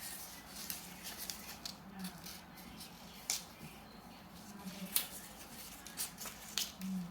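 Strips of colour paper being folded over one another by hand into a spring. Soft rustling is broken by a few sharp crinkles as the paper is creased, the clearest about three, five and six and a half seconds in.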